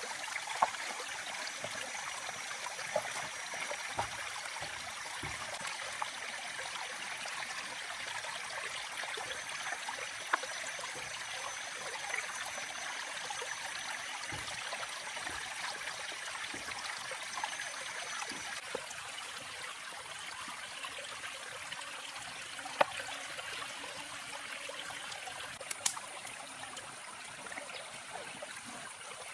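A stream running steadily, with scattered short clicks from hands handling and rubbing chili paste onto a skewered squid.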